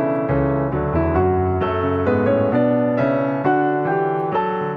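Background piano music: a melody of notes changing several times a second over lower held notes.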